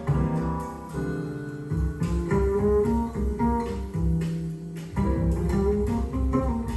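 Recorded music played through Thiel CS 2.2 loudspeakers: an instrumental passage of plucked guitar over a low bass line, with no singing.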